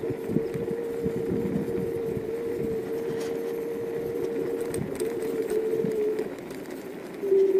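City Boss V5 electric scooter riding on a rough asphalt road: a steady motor whine over rumbling tyre and road noise. About six seconds in, the whine drops slightly in pitch and the sound quietens, then it comes back louder just before the end.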